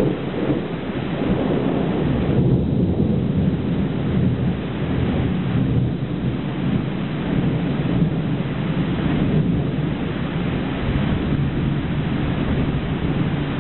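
Thunderstorm: rain falling steadily under a long, low rumble of thunder, with no sharp crack.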